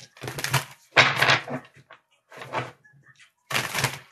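A deck of tarot cards being shuffled by hand, in about four short rustling bursts.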